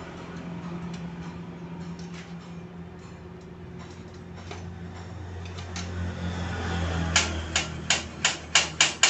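Sharp metallic clicks from the steel mechanism of a homemade rice transplanter being worked by hand, starting about seven seconds in and coming about three a second, over a steady low hum.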